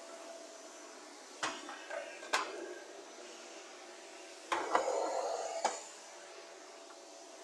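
A few sharp knocks and clinks of hard objects being handled: three single strikes, then a short burst of clatter about two seconds later. A faint steady hum runs underneath.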